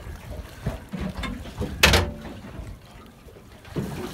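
A spinning reel being wound in and a hooked snapper splashing at the surface beside the boat, with scattered knocks and one sharp, ringing knock about two seconds in.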